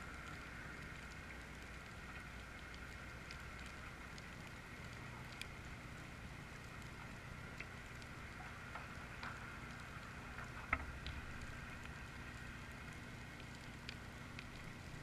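Faint steady background noise with a low hum and a few light ticks, one a little louder about ten seconds in.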